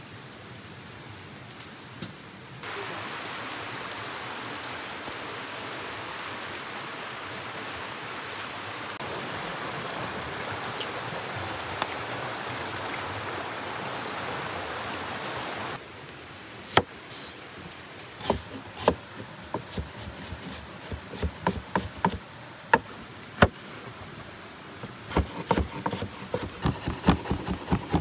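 Shallow stream water running steadily over rocks, then a kitchen knife chopping onion and tomato on a wooden cutting board: scattered strikes at first, then a quicker run of chops near the end.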